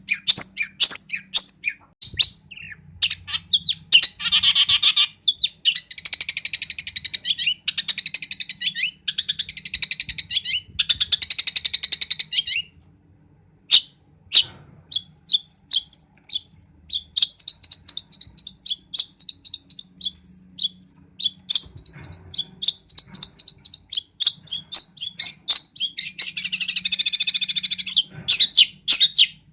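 Long-tailed shrike singing a varied song packed with mimicked phrases: fast runs of sharp chips alternate with dense, scratchy chattering passages, with one short pause about halfway through.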